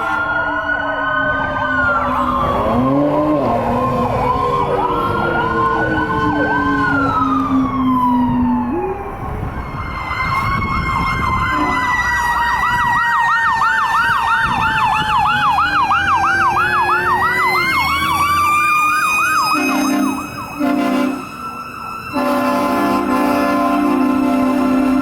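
Several fire apparatus sirens sounding at once, slow rising and falling wails overlapping with fast yelps. Near the end a deep steady horn, a fire truck air horn, sounds in short blasts and then holds.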